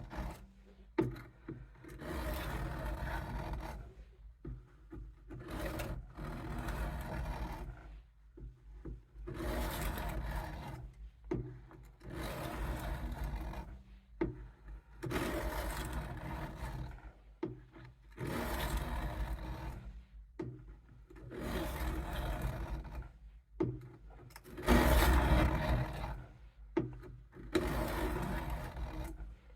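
Knife blade being pushed along a coarse 200-grit sharpening stone under heavy pressure, in repeated gritty scraping strokes roughly one every two seconds with short pauses between. The steel is being ground down to thin out a dull edge.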